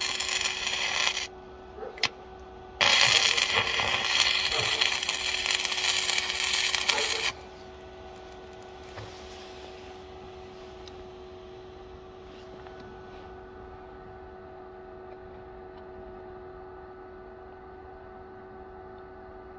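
Stick (MMA) welding arc from a 6013 rod at 95 amps, running loudly for about a second, a brief strike about two seconds in, then a second run of about four seconds that cuts off about seven seconds in. A faint steady hum remains after the arc stops.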